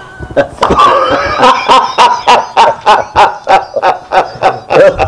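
A person laughing hard: a long run of rapid ha-ha bursts, about three a second, sinking in pitch near the end.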